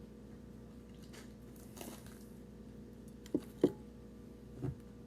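Eating a Philly cheesesteak close to the microphone: a soft rustle, then a few short, sharp bites and mouth clicks of chewing over a faint steady hum.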